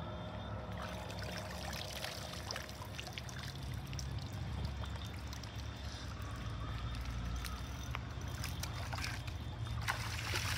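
Water pouring and trickling, with small splashes and clicks over a steady low rumble.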